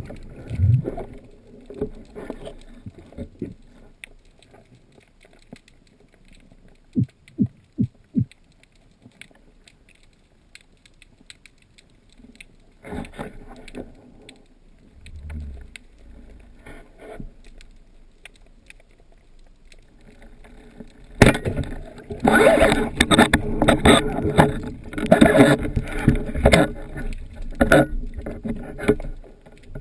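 Water sloshing and splashing close to the microphone, with scattered clicks and knocks. About two-thirds of the way through it turns loud and busy, a dense run of splashes and knocks.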